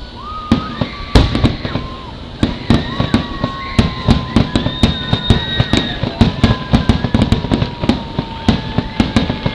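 Fireworks finale: a dense string of sharp bangs, several a second, with long whistling tones sounding over them.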